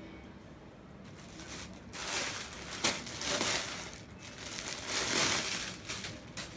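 Clear plastic bag around a folded dress crinkling as it is handled, in several bursts starting about two seconds in and dying down near the end, with a sharp crackle among them.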